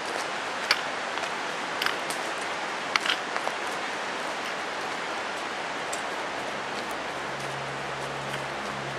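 Hikers walking on a gravel forest trail, with a few sharp clicks of boots and trekking-pole tips on the stones in the first seconds, over a steady rushing background noise.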